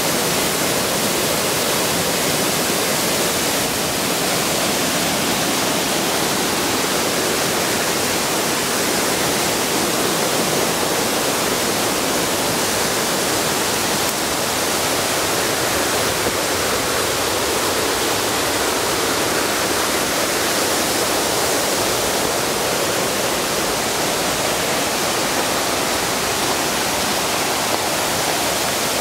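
Rushing water of a mountain stream or waterfall, a loud, steady, unbroken noise.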